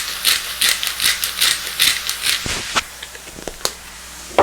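Pepper grinder being twisted over the pan, a rhythmic rasping crunch about two and a half strokes a second that stops about two and a half seconds in. A few light clicks follow, then a sharp knock near the end.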